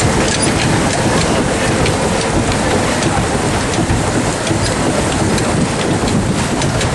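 Steady splashing and spattering water noise, full of small drips and clicks, with no let-up.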